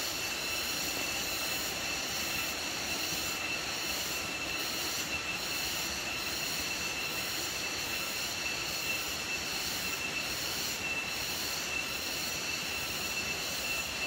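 Steady, shrill drone of a forest insect chorus, with several high tones held at once and a faint pulsing in the highest pitches.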